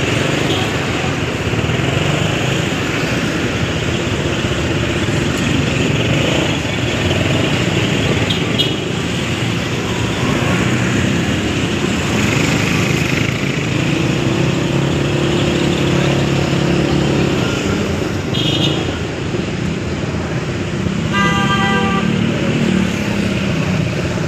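Dense city traffic heard from the back of a motorcycle: engines running steadily, broken by a few short vehicle horn toots, the longest and lowest near the end.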